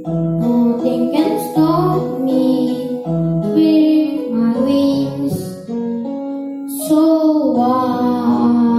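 The song's closing music: a singer's wordless held and gliding notes over a piano-led backing track.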